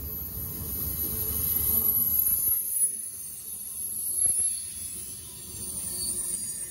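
CSX freight train's cars rolling past close by: wheels on rail with a steady rumble and a high hiss. The rumble drops away about two and a half seconds in, and a couple of sharp clacks stand out.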